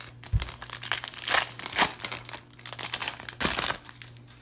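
Foil wrapper of a Topps Finest baseball card pack crinkling in irregular bursts as it is opened and the cards are pulled out.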